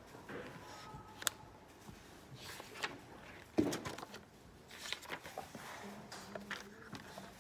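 Paper pages of a spiral-bound notebook being leafed through and flipped, with rustling and several sharp clicks and taps. The loudest is a dull knock about three and a half seconds in.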